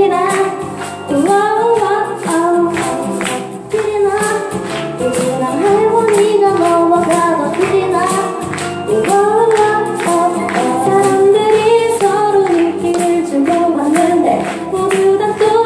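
A band playing a song live, with a singing voice carrying a wavering melody over the accompaniment and a steady beat of short percussion strokes.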